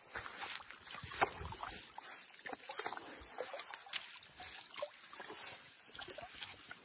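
Wet mud squelching and sloshing as an African elephant calf rolls and shifts in a mud wallow: a scatter of small irregular wet sounds, the loudest a little over a second in.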